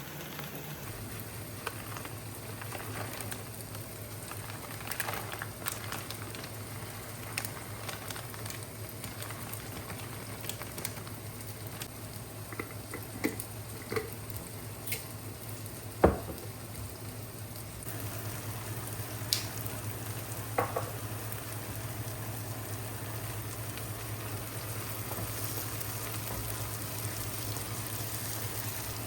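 Kitchen cooking sounds: a steady low hum with a sizzling hiss, scattered clicks of kitchenware, and one sharp knock about halfway through. The hum grows a little louder about two thirds of the way in.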